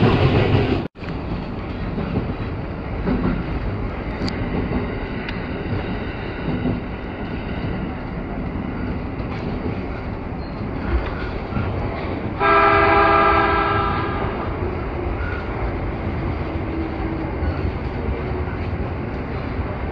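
JR 209-series electric train running into a station platform, heard from inside the train: steady rumble of motors and wheels on rail. About halfway through, a horn sounds once for about a second and a half.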